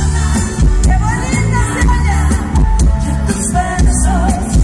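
Live amplified band music over a PA system with heavy bass, a female singer's voice coming through at times.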